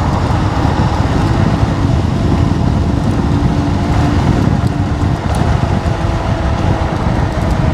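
Wind buffeting the microphone and road noise while riding a Wolf King GT electric scooter at speed, with a faint steady whine underneath.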